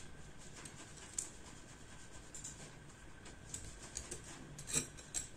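Faint rubbing and scratching of macrame cord being looped over and pulled through a pair of bangles by hand, with a few light clicks, the sharpest a little before the end.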